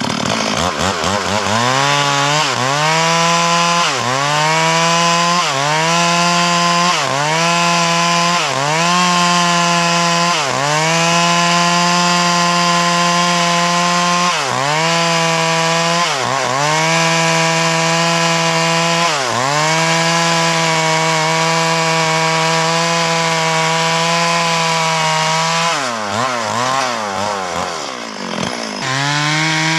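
Two-stroke chainsaw cutting through the wood of an old rambutan tree, running near full throttle. Its pitch dips briefly and recovers about every one to two seconds, and near the end the engine slows and wavers before rising back to full speed.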